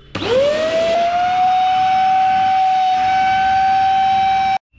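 Kent Storm handheld vacuum cleaner's motor switched on, its whine rising quickly as it spins up and then holding a steady high pitch. It stops suddenly near the end.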